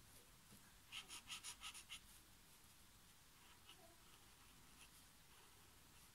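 Soft brush tip of an Ecoline watercolour brush pen stroking on watercolour paper: a faint, quick run of about seven short scratchy strokes about a second in, then only occasional faint scratches.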